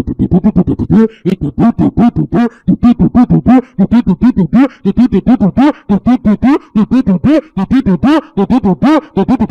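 A man speaking in tongues into a handheld microphone: a loud, fast, rhythmic stream of short syllables, about five or six a second, each rising and falling in pitch.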